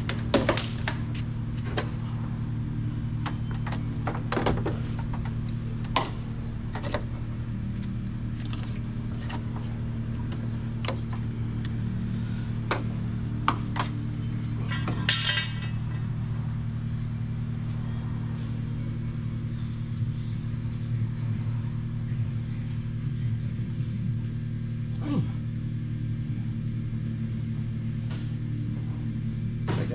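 Scattered clicks and clanks of battery charger clamps and cables being handled and clipped onto a car battery, over a steady low hum.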